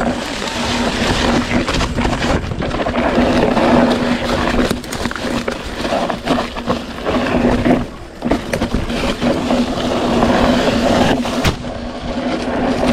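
Mountain bike rolling down a rough dirt trail: tyre noise over the ground with knocks and rattles from the bike, and wind on the microphone. A steady low hum runs under it, and the noise dips briefly partway through.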